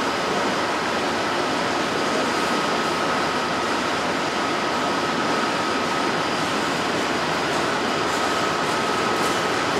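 Freight train cars rolling steadily past: a continuous, even clatter and hiss of steel wheels on the rails, with a faint thin steady tone running through it.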